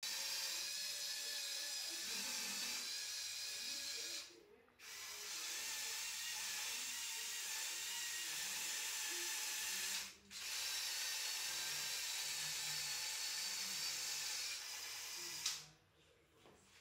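The electric motors and plastic gearing of a Lego Technic model whirring with a steady high whine as it drives. The whine stops briefly twice, about four seconds in and again about ten seconds in, then cuts off with a click near the end.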